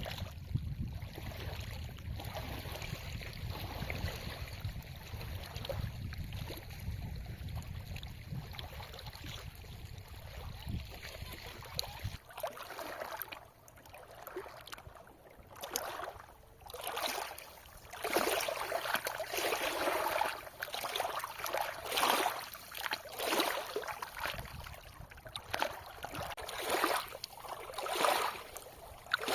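River water moving at the bank, with a low wind rumble on the microphone that stops abruptly about twelve seconds in; after that the water's swish swells and fades unevenly, louder in the second half.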